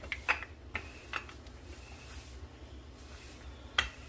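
Wooden rolling pin rolling out soft dough on a floured wooden board, with a few short sharp clicks and knocks from the pin and its handles: three in the first second and a half and a louder one near the end.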